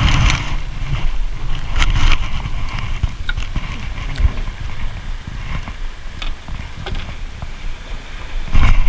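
Wind rumbling unevenly on the microphone and water lapping at a small outrigger boat, with scattered light knocks and clicks.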